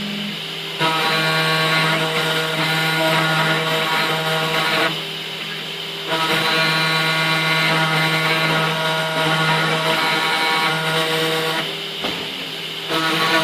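CNC milling machine running while milling a PCB: a steady motor whine at one fixed pitch. It gets louder for two long stretches, about a second in and again about six seconds in, and drops back between them.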